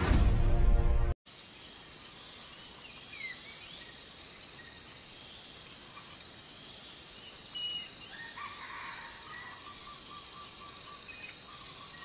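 Music ends abruptly about a second in. Then a steady high insect drone runs on, with a few faint bird calls over it: short high whistled notes, and a run of quick repeated notes in the second half.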